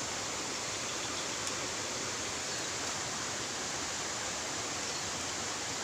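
Steady rush of flowing stream water, an even hiss with no change through the stretch.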